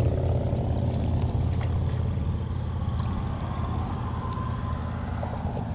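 A motor vehicle's engine rumbling low and steadily, slowly fading as it moves away.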